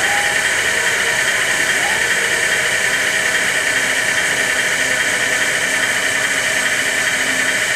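Simulated engine idle from a Tamiya radio-controlled truck's sound unit, a steady hissy drone with no change in pitch.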